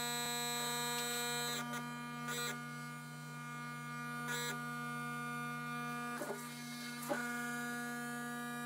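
Homemade paper-plate loudspeaker playing a steady 160 Hz test tone, heard as a buzzy hum rich in overtones, with a few short crackles along the way.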